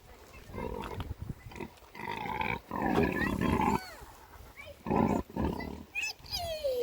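An animal calling in harsh, rough bursts, the longest about two seconds in, a shorter one about five seconds in, then quick falling chirps near the end.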